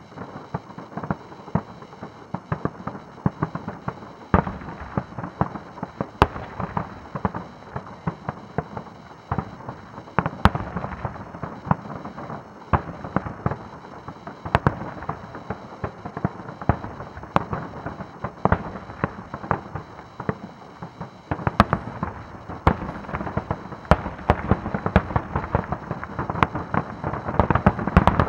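Aerial fireworks shells bursting in a rapid barrage of sharp bangs, several a second, with the barrage growing denser about three quarters of the way through.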